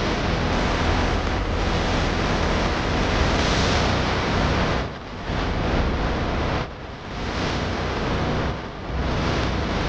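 Loud rushing noise inside a moving car: wind and road noise buffeting the microphone, dropping away briefly about five, seven and nine seconds in.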